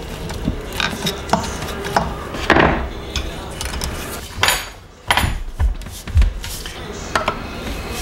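Metal parts and hand tools clinking, tapping and scraping while the back end of a pool pump motor is handled. Three longer scrapes stand out, a third of the way in, just past halfway and again soon after.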